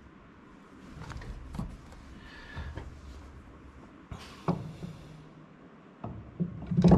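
Light clicks and knocks of a Baer aluminium brake master cylinder being handled and pushed onto the brake booster's studs over its pushrod, with a sharper knock about four and a half seconds in and another near the end. It is a test fit to check that the filed-down pushrod now lets the master cylinder seat flat.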